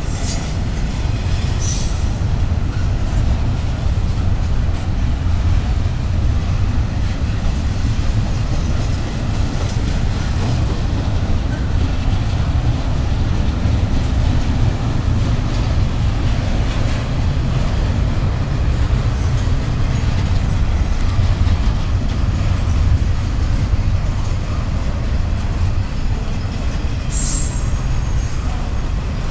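Freight cars of a Pan Am Railways train rolling past, a steady low rumble of wheels on rail, with brief high wheel squeals near the start and again near the end.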